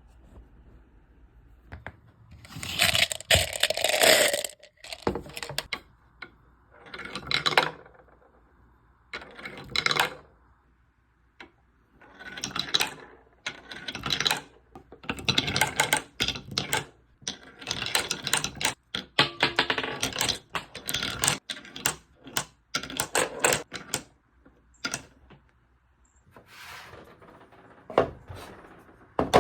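Marbles and balls rolling and clattering through a handmade marble run. The rattling comes in runs of a second or two, with short gaps between.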